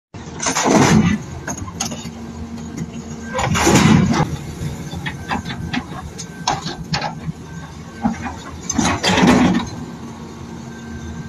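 Excavator's diesel engine running steadily, with three loud rushes of noise, each about a second long, and scattered clanks between them.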